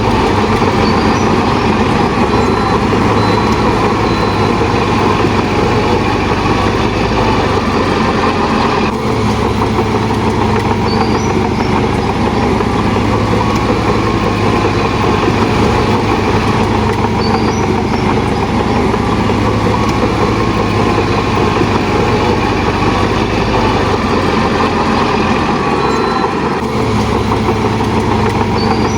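Shantui DH17 bulldozer's diesel engine running steadily, with brief dips in the sound about nine seconds in and again near the end.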